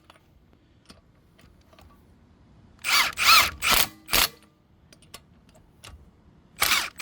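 Impact wrench run in four short trigger bursts about three seconds in, each spinning up and back down, gently running lug nuts onto the wheel studs.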